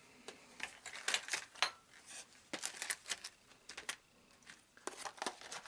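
Small model locomotive parts being handled and set down on a workbench: irregular light clicks and clinks, a few dozen in all.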